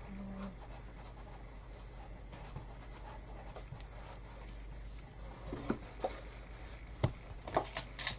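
Hands handling cord trim against a felt hat brim: soft rubbing and scratching. Several sharp clicks and knocks come in the last few seconds as a hot glue gun is picked up.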